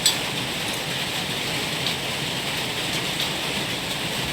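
A steady, even hiss of background noise, with one sharp click at the very start and a couple of faint taps later.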